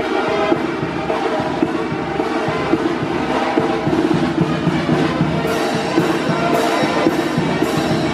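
Live village brass band playing a dance tune: saxophones and other brass carry the melody over a drum beat, with crisp percussion strikes about twice a second from about halfway through.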